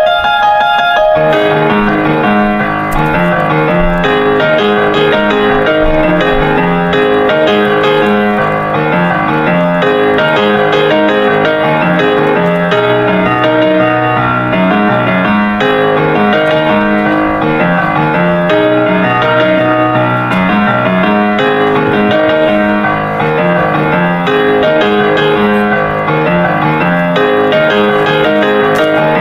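Background piano music, with a steady stream of notes.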